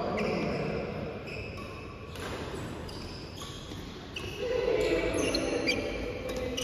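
Badminton rally on an indoor court: rackets striking the shuttlecock in sharp smacks, with shoes squeaking in short high chirps on the court floor.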